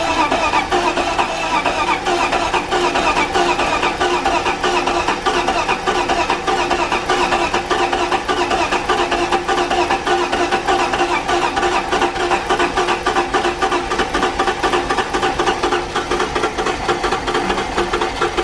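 Freshly swapped straight-six engine in a BMW E46 330i cranking on the starter in a long, steady attempt to start, with a fast, even pulse. The crew take its reluctance to fire for air still in the fuel system.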